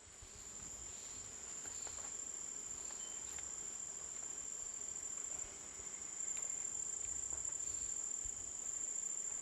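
Insect chorus: a steady, high-pitched shrilling that holds one pitch and fades in over the first second.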